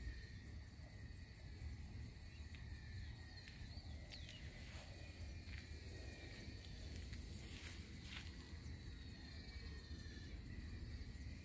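Insects chirring steadily, a faint high-pitched drone, over a low steady rumble. A few short sharp sounds come around the middle.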